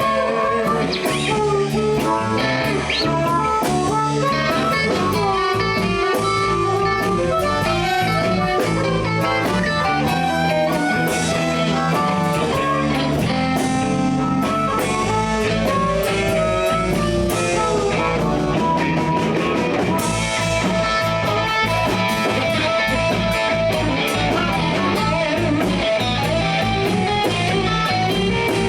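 Live blues band playing an instrumental passage with guitar, bass and a drum kit.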